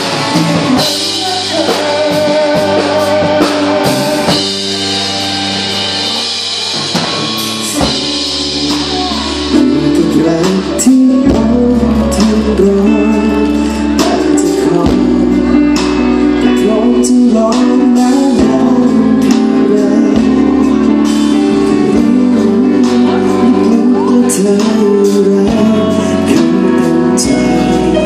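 Live rock band with electric guitars and a male singer, played through a stage PA; the music gets louder and fuller about ten seconds in.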